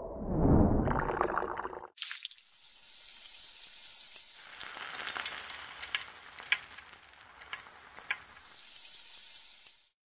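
A low, muffled rumble for the first two seconds, then food sizzling in a hot pan: a steady hiss with scattered crackling pops, which cuts off sharply near the end.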